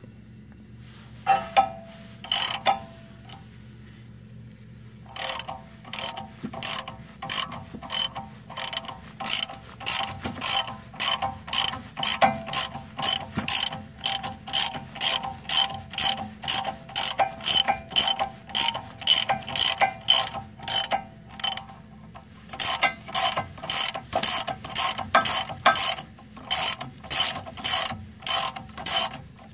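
Hand socket ratchet clicking as it is worked back and forth to unscrew the top nut of a front sway bar end link, with an open-end wrench holding the link stud. A few clicks come first, then after a short pause a long, even run of sharp clicks at about two a second, with one brief break near the end.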